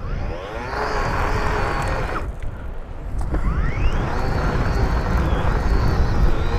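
Makita brushless couple-shaft power head running the paddle sweep attachment, its spinning paddles working through grass and gravel: a motor whine over a low rumble. About two seconds in the motor drops away, then it winds back up with a rising whine.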